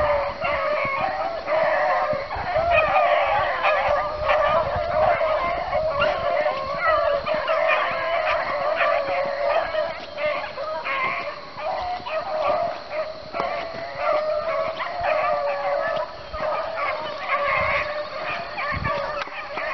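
A pack of beagles baying in full cry, many overlapping voices going without a break: the hounds are on a rabbit's scent and running the track.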